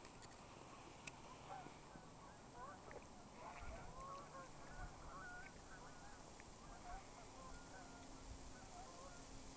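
A flock of geese honking, many short overlapping calls, faint; the calling is busiest in the middle and thins out near the end.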